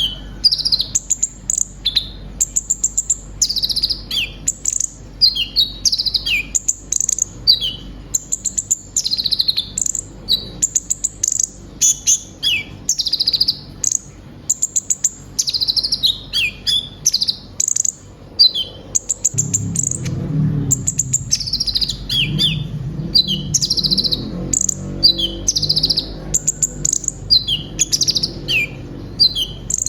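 A sunbird (kolibri ninja, 'konin') singing a long, rapid run of high chirps and quick falling whistled sweeps, packed with phrases mimicked from other birds. A low rumble runs beneath it for several seconds in the second half.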